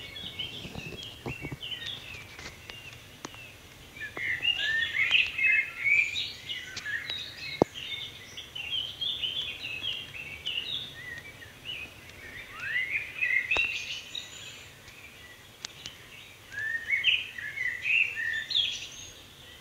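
Many small birds chirping at once in bursts of short, high calls, some sweeping upward, with a few sharp clicks.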